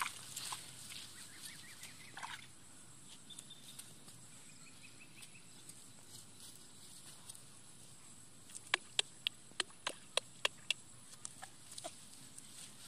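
Quiet outdoor background with some rustling. A little past halfway comes a quick run of about eight sharp clicks, roughly three or four a second, then two fainter ones.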